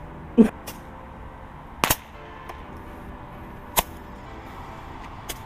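Fireworks going off in a string of sharp pops, about one every one and a half to two seconds, the loudest about half a second in; typical of Roman candle shots.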